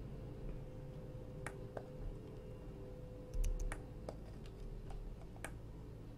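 Scattered, irregular clicks of a computer keyboard and mouse over a faint steady hum, with a dull low thump about three and a half seconds in.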